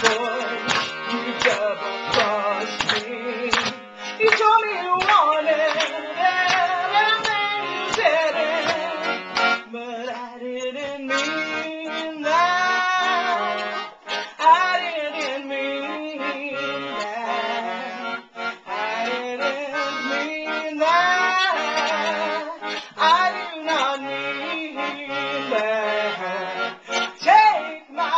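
Accordion playing a song, with sharp rhythmic chords for the first several seconds and then held chords, while a woman sings over it with vibrato.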